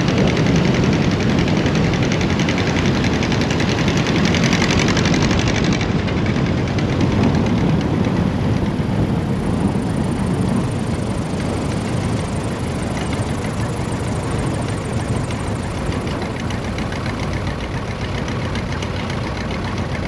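1947 Aeronca L-16A's air-cooled flat-four engine and propeller running at low power through the landing rollout on a grass strip, with a rush of air over the airframe. The hiss cuts off about six seconds in, and the engine then idles on, slowly getting quieter as the plane slows to a taxi.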